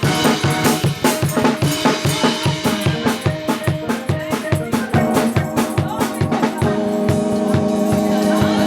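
Live church band music: a drum kit keeps a steady beat under sustained chords. About two-thirds of the way through the drums drop out and the held chords carry on.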